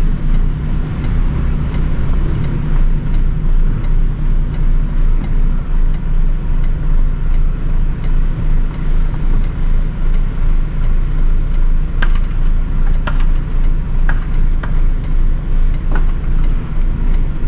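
Heavy goods vehicle's diesel engine running steadily at low revs, heard from inside the cab, with a deep, evenly pulsing drone. A few sharp clicks come over the last few seconds.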